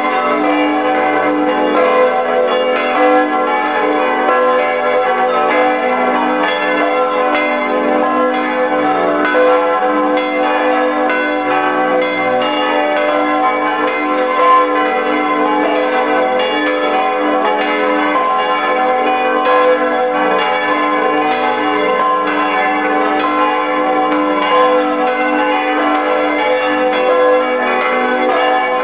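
Several large church bells of a cathedral tower swinging and ringing together in a continuous peal, heard up close from inside the belfry, their strokes overlapping into a dense, steady wash of tones.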